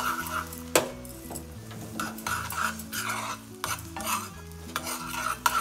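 A metal spoon stirring and scraping around a small metal pan of melted butter and oil sizzling on a gas flame, in repeated short strokes over a steady sizzle.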